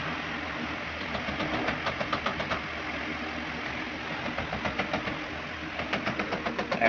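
Rubber mallet tapping ceramic wall tiles into their mortar bed to set them flush. It comes in quick runs of light knocks, about five a second, in the middle and again near the end, over a steady background hum.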